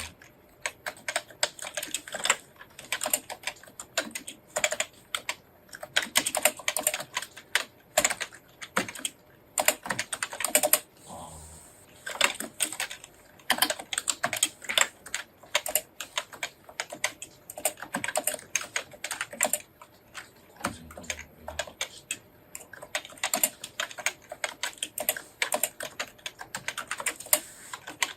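Fast typing on a computer keyboard in thumb-shift (NICOLA) kana input: dense runs of key clicks, broken by brief pauses a few times.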